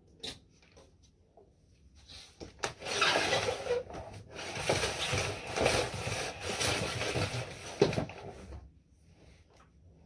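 Irregular rubbing and rustling handling noise, starting about three seconds in and lasting about five seconds, with a sharp knock near the end.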